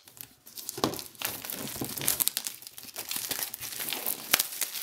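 Plastic shrink-wrap film being torn and peeled off a cardboard box, crinkling and crackling throughout with sharp snaps, the loudest snap near the end.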